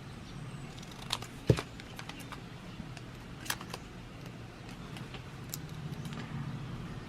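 Light handling of a small piece of parchment paper joined by a stapleless stapler: a few scattered clicks and taps, the sharpest a knock about a second and a half in, over a low steady hum.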